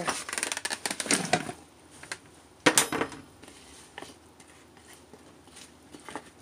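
Cut bell pepper pieces dropping into a pot of stew with a quick flurry of clattering, then a spatula knocking sharply on the pan twice about three seconds in, followed by light scattered taps as it stirs.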